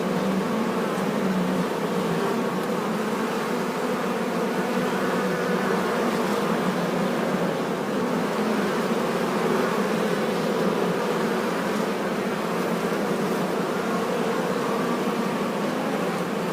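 A swarm of bees buzzing: a dense, steady drone of many wingbeats with no break.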